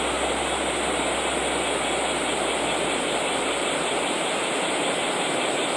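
Waterfall rushing in a steady, even stream of noise that does not change.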